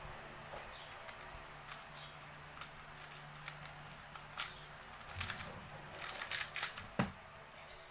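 Rubik's cube layers being turned: a run of quick, light plastic clicks and rattles, thickest about six to seven seconds in, over a faint steady low hum.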